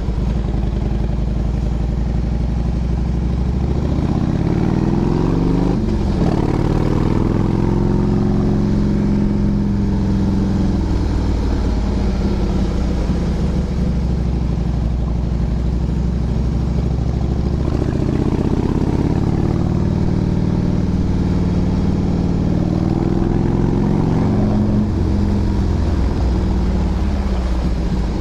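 Motorcycle engine running while climbing a steep road, its pitch rising and falling twice as the rider opens and eases the throttle.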